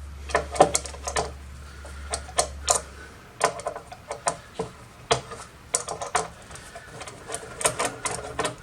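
Phillips screwdriver backing a screw out of the case of a Lenovo ThinkCentre Edge 72z all-in-one: a run of irregular clicks and ticks as the screw turns and the driver is reset. A faint low hum sits under the first few seconds.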